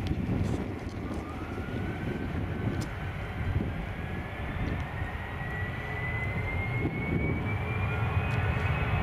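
Airbus A320's CFM56 turbofan engines spooling up for take-off: a whine rising steadily in pitch over a low rumble, growing slowly louder.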